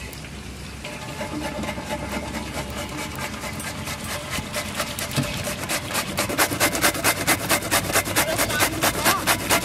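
Bottle gourd being grated on a flat stainless-steel hand grater over an aluminium pot: repeated rasping strokes, several a second, that come quicker and louder from about halfway through.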